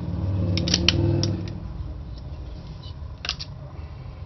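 Sharp cracks and clicks as a computer power supply's circuit board is bent and broken by hand: a quick cluster of snaps about a second in and one more a little past three seconds, over a low steady hum.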